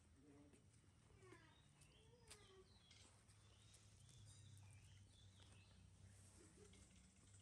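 Near silence: faint outdoor ambience with a few faint, high chirping calls and a soft click.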